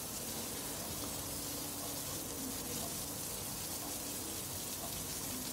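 Skewered prawns frying in ghee in a pan: a steady, even sizzle. A faint low hum comes and goes behind it.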